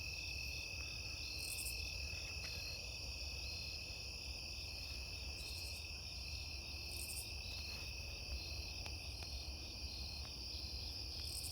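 Chorus of crickets and other insects trilling steadily, several overlapping pitches, one of them pulsing at an even rate, with brief higher buzzes four times. A low rumble lies under it.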